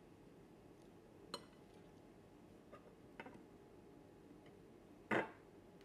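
Kitchen utensils clinking against dishes: a sharp click about a second in, a couple of lighter clicks around three seconds, and a louder, duller knock near the end.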